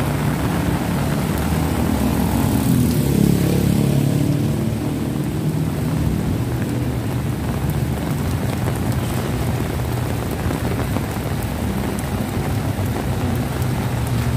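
Heavy rain falling on a wet street, a steady hiss throughout. A motorcycle tricycle's engine passes close, louder for a few seconds about two to five seconds in.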